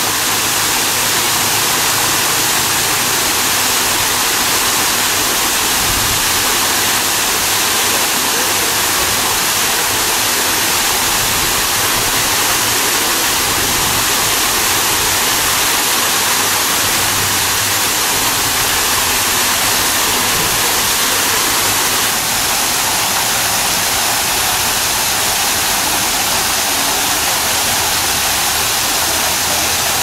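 Small waterfall cascading down a rock face into a pool: a steady, unbroken rush of falling and splashing water.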